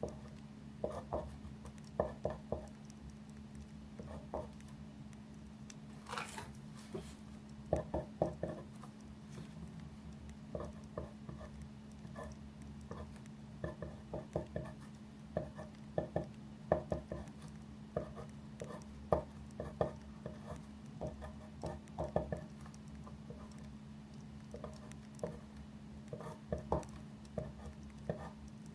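Pen writing on paper on a desk, irregular clusters of short taps and strokes, over a steady low hum. A brief brighter rustle comes about six seconds in.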